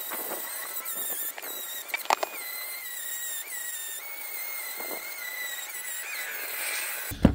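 Dremel rotary tool running at mid speed, its bit grinding rust off a brake caliper bracket's hardware seats. A steady high whine that wavers slightly in pitch as it bears on the metal, then stops just before the end.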